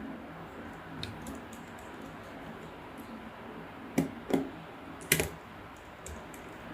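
Light scattered clicks and taps of a metal laptop heat sink and its screws being handled and fitted onto the motherboard, with three sharper knocks about four to five seconds in.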